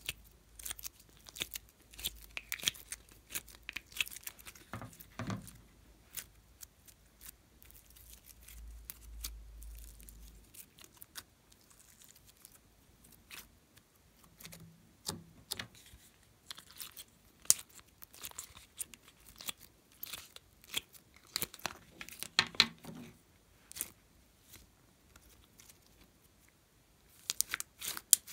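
Hands working sticky slime, peeling and pressing it, with foam beads mixed in: many small sharp crackles and clicks, and a few softer squishes.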